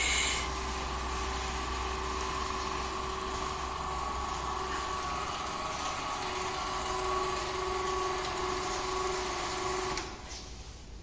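Steady hum of running workshop machinery with a faint whine, falling away about ten seconds in.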